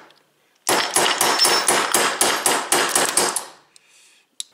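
A quick run of hammer taps on a punch, about five a second, driving the tight hammer pin out of a Beretta 92 pistol frame. The taps start about a second in and stop near the end.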